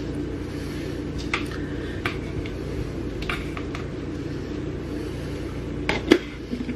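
Scattered light clicks and taps of kitchen utensils and containers against a cooking pot over a steady low hum, with a louder pair of knocks near the end.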